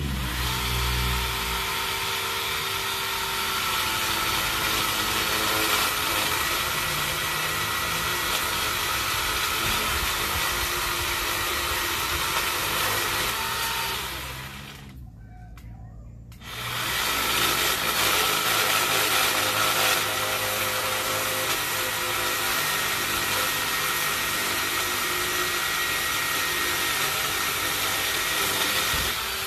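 Worx WG368E 40V cordless electric chainsaw running at speed with a steady high motor-and-chain whine as it cuts branches. About halfway through it stops for about two seconds, then runs again.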